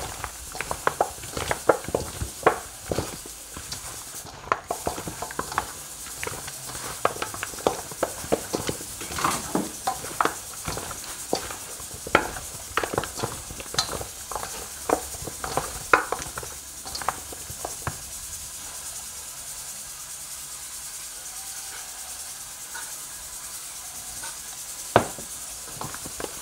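Bare hands mixing and squeezing seasoned goat meat in a stainless steel bowl: irregular wet squishes and clicks. They thin out about two-thirds of the way through, with one sharper knock near the end.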